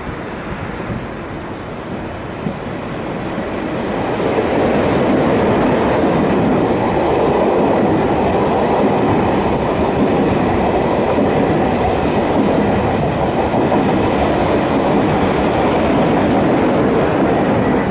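Double-deck SNCF TGV high-speed train running past on the tracks, a steady rumble of wheels on rails. The noise swells about four seconds in as the carriages come by and then holds loud and even.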